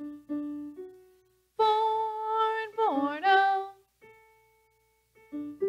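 A piano keyboard plays the melody of the echo phrase in short repeated notes. In the middle a woman's voice sings a held wordless note that slides down near the three-second mark before the keyboard notes return.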